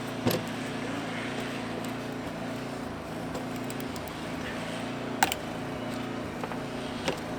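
Steady low hum of a running engine or motor, with sharp clicks about a third of a second in, at about five seconds (the loudest) and near the end.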